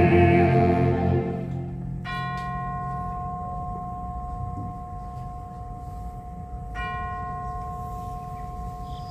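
A held sung note with accompaniment fades out in the first second or so. Then a bell chime is struck twice, about five seconds apart. Each strike rings on with a long, slow decay.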